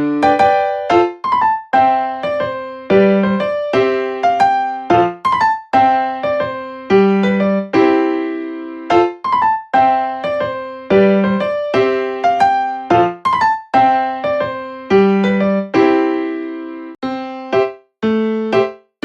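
Background music: a solo keyboard with a piano sound plays a gentle melody over chords, each note struck and left to fade.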